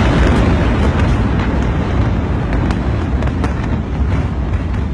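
Loud rumbling roar following a large explosion, with scattered sharp pops and crackles, slowly dying down.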